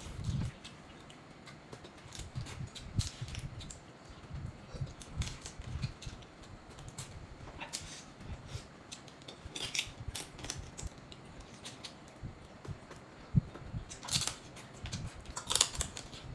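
Crab shells being cracked and crunched by hand and between the teeth while eating, with chewing and sucking: an irregular run of clicks and crackles, with several louder crunches in the second half.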